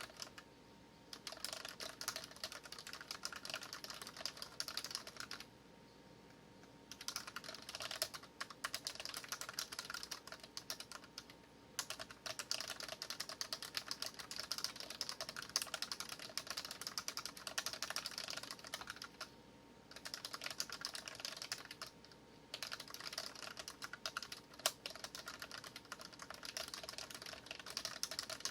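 Dareu EK820 mechanical keyboard with red linear switches being typed on in fast runs of keystrokes, broken by a few pauses of a second or so.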